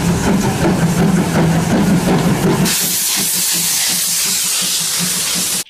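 Steam locomotive dressed as Thomas the Tank Engine running, with a steady low hum and hissing steam. About halfway through, a louder, brighter rush of steam sets in, and the sound cuts off suddenly.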